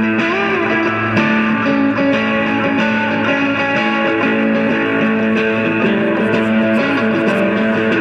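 Electric guitar music playing steadily, with sustained, overlapping notes and a note bent in pitch near the start.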